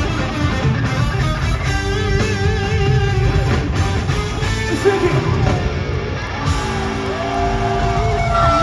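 Japanese rock band playing live and loud: electric guitars over bass and drums, with wavering, vibrato-laden lead lines and a long held note in the last second and a half.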